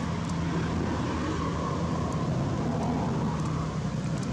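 Steady low mechanical rumble in the background, with no break or change.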